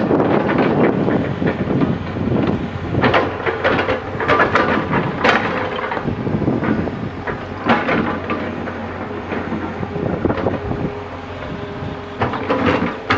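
JCB 3DX backhoe loader's diesel engine running steadily under working load, with several sharp knocks and clanks from the working bucket and arm.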